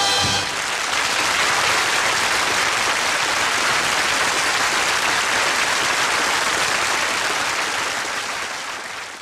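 Audience applause right after a song ends, steady and then fading out near the end.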